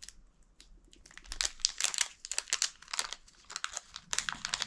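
Small resealable plastic bag crinkling as fingers open it and handle it to get a button out. It is fairly quiet for about the first second, then a dense run of quick crackles follows.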